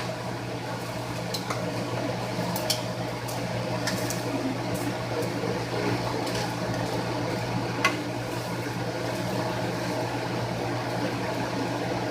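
Eggs cooking in a pot on a stovetop burner: a steady hiss with scattered sharp pops and clicks, over a steady low hum.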